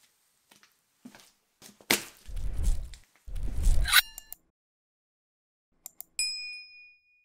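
A sneaker squashing soft gummy candy: faint squishing at first, then about two seconds of loud squelching and crackling. Near the end come a short chime, two quick mouse clicks and a ringing bell ding from a subscribe-button animation.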